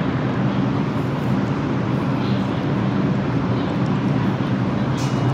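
New York City Subway train at a station platform, a steady low hum and rumble that does not change in level.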